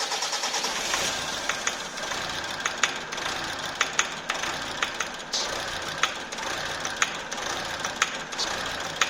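Mazda 6's RF7J 2.0-litre diesel engine idling just after starting, with sharp knocks standing out about once or twice a second: the knock that appeared after the engine was installed.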